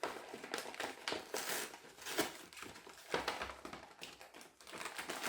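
Snack packaging being opened and handled: irregular crinkling and crackling of a wrapper, with sharp clicky rustles, from what turns out to be a bag of ham-flavoured chips.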